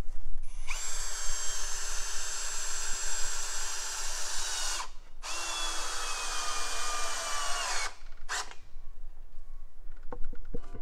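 Cordless drill running under load into a wooden beam: two runs of about four and three seconds, the motor's pitch sagging slightly as it bites in, then a short burst near the end.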